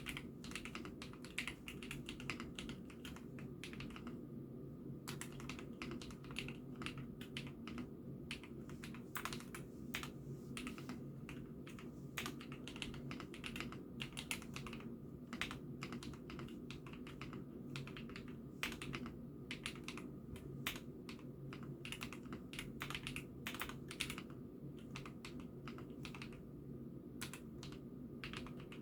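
Continuous typing on an IKKI68 Aurora mechanical keyboard: irregular clicks of the keys several times a second, with a couple of short pauses, over a steady low background hum.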